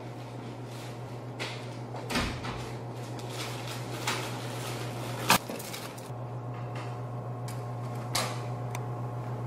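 Handling sounds over a steady low hum: a door, a plastic bag being handled, and a metal spring mousetrap set down on the floor. There are a few short knocks, a thump about two seconds in, and a sharp click just past five seconds, which is the loudest.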